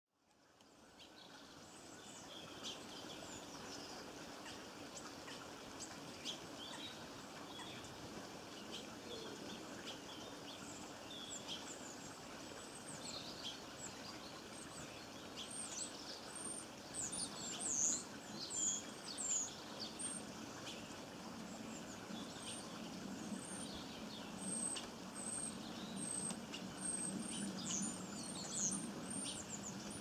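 Small songbirds chirping and twittering in short, high calls over a steady low background noise. The calls become busier and louder about halfway through.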